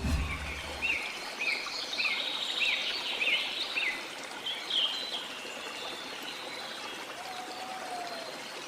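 Birds calling over a steady rush of running water: a quick series of short, repeated chirps in the first four seconds, then a few scattered calls.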